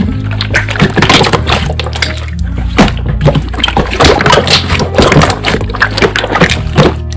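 Slime being squished and pressed by hand, a run of wet clicks and crackles, over background music with steady low bass notes.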